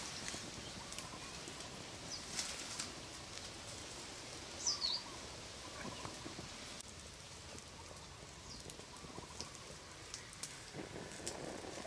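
Quiet outdoor ambience with scattered light clicks and taps, and one short, high chirp falling in pitch about five seconds in.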